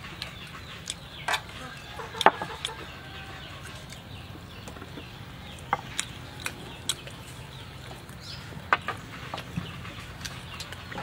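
Scattered sharp clicks and taps of utensils and dishes being handled at a table, the loudest about two seconds in, with chickens clucking in the background.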